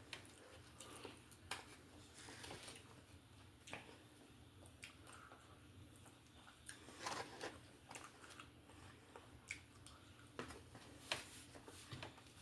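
Faint chewing and mouth sounds of someone eating, with scattered soft clicks.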